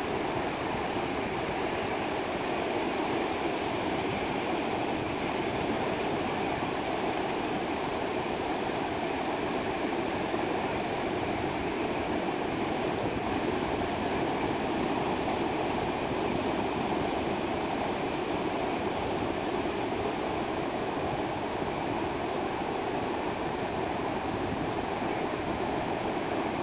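Ocean surf breaking offshore: a steady, even rushing wash of waves without separate crashes.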